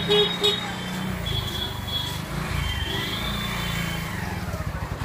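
Motorcycle engine running in a narrow street, a steady low rumble, with a few short high-pitched beeps near the start.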